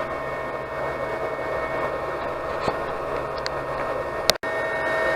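AnyCubic Chiron 3D printer running mid-print, its cooling fans whirring steadily with a constant whine. A short click about four seconds in, then the sound resumes with a slightly different pitch.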